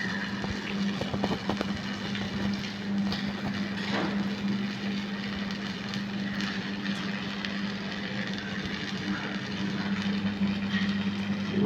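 Welding on 2 mm SS 304 stainless steel sheet: a steady hum with scattered crackling throughout.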